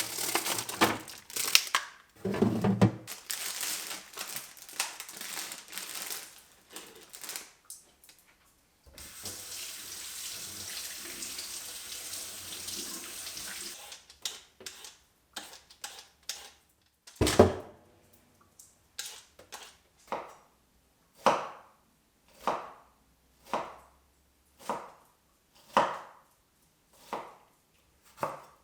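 Kitchen sounds: a few seconds of clattering, then a water tap running steadily for about five seconds and shutting off. After a loud knock, a knife chops on a cutting board at an even pace, about one stroke a second.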